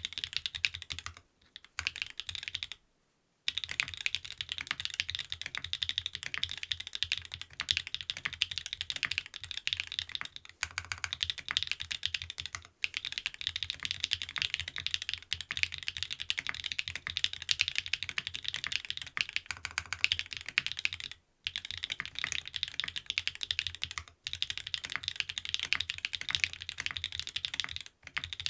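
Continuous fast typing on a TKD Cycle 7 custom mechanical keyboard with SW x Gateron Deepping switches (stock lube), an aluminium plate, gasket mount and PBT keycaps: a dense run of keystroke clacks, broken by brief pauses about 3 seconds in, about 21 seconds in and near the end.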